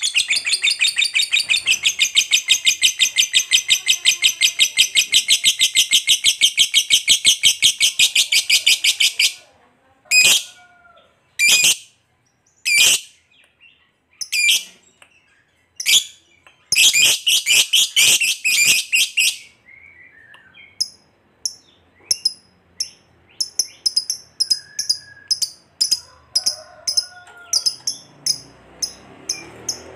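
Lovebird giving its long, rapid chattering call ('ngekek panjang'), a fast run of high repeated notes for about nine seconds. It then breaks into a few sharp single calls and another short burst of chatter, and ends with a string of short high chirps.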